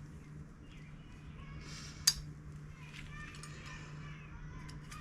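Pliers working at an old door-hinge bushing, a faint scraping and rubbing of metal with one sharp click about two seconds in; the bushing is not coming out. A steady low hum runs underneath.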